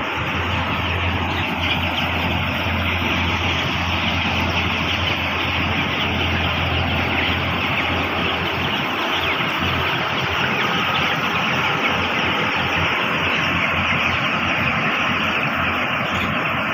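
A large flock of 12-day-old broiler chicks peeping all together in a dense, unbroken chatter, over a steady low hum.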